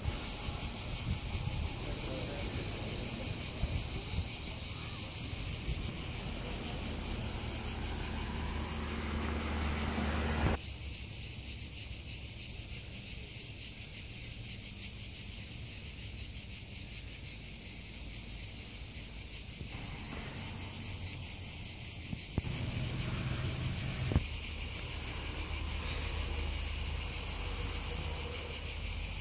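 Cicadas buzzing in a loud, high, finely pulsing drone that never lets up, with a low rumble underneath at times.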